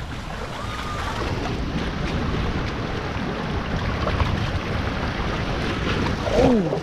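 Rushing, splashing water under a tube raft sliding down a water-slide rapids channel, with wind buffeting the microphone. A brief falling voice sound near the end.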